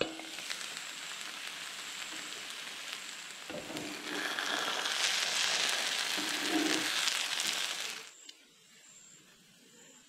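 Vegetable and egg mash sizzling in a hot frying pan, with spatula clicks and scrapes; the sizzle gets louder about four seconds in. It drops suddenly to a faint hiss about eight seconds in.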